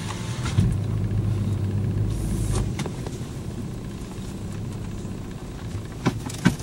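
A car's engine and cabin noise heard from inside the car as a steady low hum, with a couple of sharp clicks near the end.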